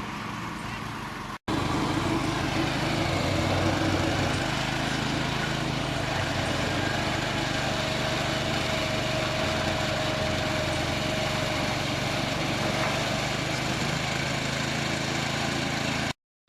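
A small engine running steadily at a constant speed, cut off by two brief dropouts, about a second and a half in and near the end.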